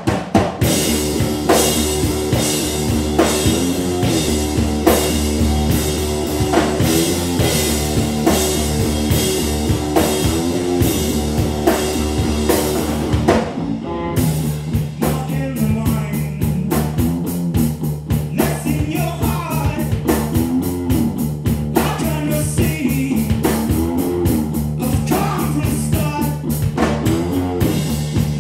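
Live rock band playing electric guitar and drum kit, starting abruptly with heavy cymbals. About halfway through the cymbals ease off and a man's singing voice comes in over the guitar.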